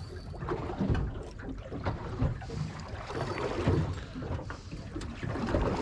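Water slapping against the hull of a small aluminium dinghy as it rocks, in irregular low knocks, with wind buffeting the microphone.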